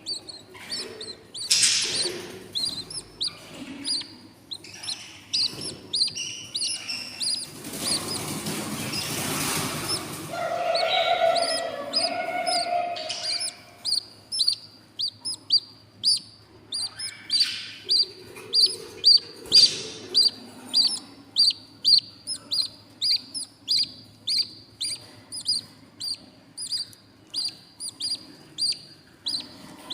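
Baby budgie chicks in a nest box cheeping over and over in short high peeps, the begging calls of hungry nestlings, settling into about two cheeps a second. A brief rustling scuffle comes about eight seconds in, followed by a lower, longer call.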